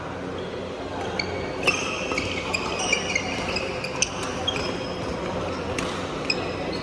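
Badminton doubles rally: sharp racket strikes on the shuttlecock about once a second, starting about a second in, with frequent short high squeaks of shoes on the wooden court floor.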